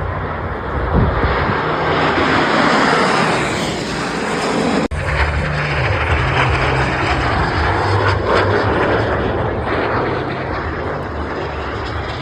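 Jet engines of Snowbirds CT-114 Tutor aircraft roaring as the formation flies past, loud and steady, with an abrupt cut about five seconds in.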